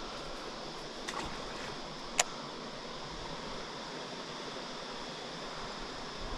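Steady outdoor background hiss of a river bank, with one sharp click about two seconds in and a few fainter ticks just before it.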